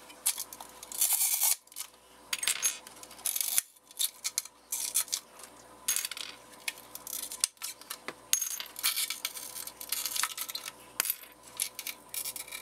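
Shards of broken fog light lens glass clinking and scraping in irregular clusters of sharp clicks as they are picked out of the fog light housing.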